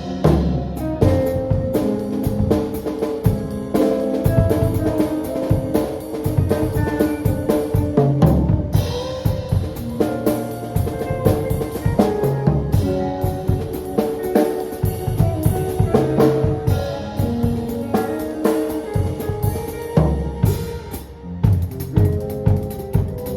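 A band playing an instrumental piece: a drum kit with snare and bass drum keeps a busy beat under held pitched notes and chords.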